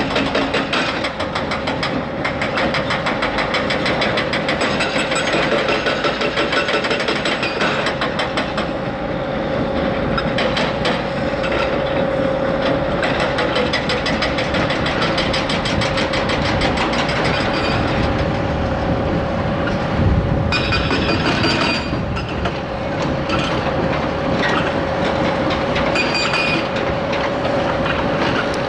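Large tracked hydraulic excavator working: its diesel engine running steadily with a constant whine and a dense metallic clatter, and a single thump about two-thirds of the way through.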